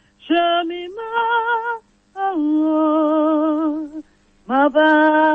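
A woman singing a gospel song in three phrases of long held notes with vibrato, separated by short breaths.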